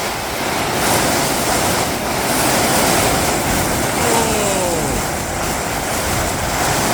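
Gale-force wind gusting hard, a loud steady rushing roar that swells about a second in and again around two to three seconds in. About four seconds in, a short falling whine sounds over the wind.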